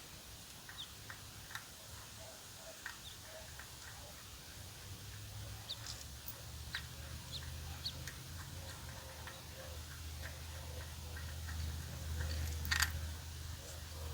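Hand tools working the oil pan bolts of a BMW X5 engine: faint scattered ticks and clicks over a low hum, with one sharper click near the end.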